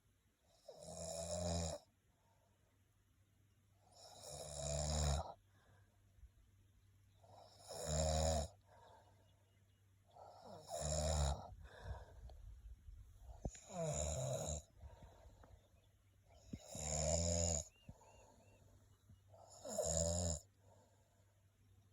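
A turkey snoring, with seven snores about three seconds apart. Each snore lasts about a second and grows louder before it stops.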